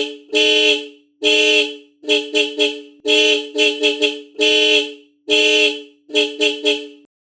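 Duromoto DM02 12 V dual-tone disc horn, its low 335 Hz and high 435 Hz tones sounding together. It is blown in a pattern of long blasts mixed with quick runs of three short toots, and stops about a second before the end.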